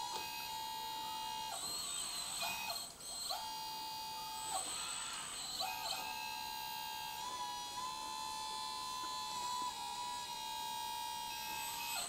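Electric hydraulic pump of a 1/14-scale RC hydraulic excavator (XDRC Liebherr 945) whining steadily at a high pitch while the boom, arm and bucket are worked. The whine steps slightly in pitch and breaks off briefly several times, with a rushing hiss in the breaks.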